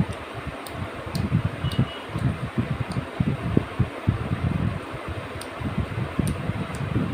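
Air buffeting the microphone in an uneven low rumble, with a few faint clicks over it.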